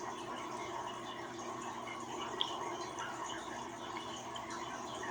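Room tone: a steady faint hiss and hum, with one small click about two and a half seconds in.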